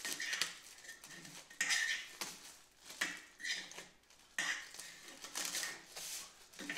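Clear protective plastic film being peeled and pulled off a new lawnmower's handle bar, crinkling and rustling in irregular bursts.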